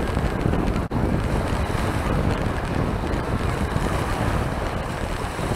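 Heavy wind buffeting the microphone over moderate sea waves washing in, cutting out for an instant about a second in.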